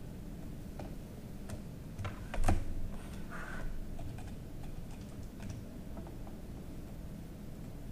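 Computer keyboard typing: scattered sharp key clicks, with the loudest cluster of clicks about two and a half seconds in and a quick run of keystrokes a little past the middle.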